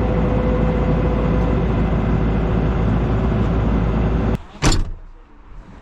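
A steady, loud engine or machine runs, then stops abruptly about four seconds in, followed by a brief loud rush of noise.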